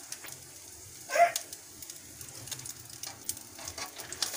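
Faint crackling sizzle of cooking oil dripped from a spoon around a dosa on a hot tawa. A brief call cuts in about a second in.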